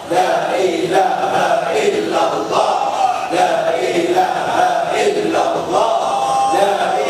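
Men's voices chanting Sufi zikir (dhikr) together, a melodic chant whose pitch glides up and down without a break.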